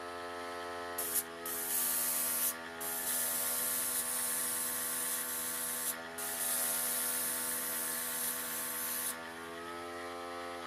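An airbrush spraying in three long bursts of hissing air, the first starting about a second in and the last stopping about nine seconds in. Under it, a small air compressor runs with a steady hum whose pitch sags slightly while air is drawn.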